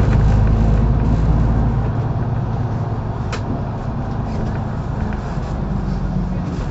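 Mercedes-Benz O530 Citaro bus heard from inside while driving: the diesel engine and road noise run steadily, the deepest part of the engine hum drops away about two seconds in, and there is a single sharp click about halfway through.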